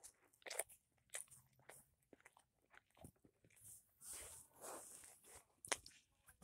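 Close-up sounds of someone eating fast food: chewing and biting, with scattered crisp clicks and smacks, the sharpest one near the end.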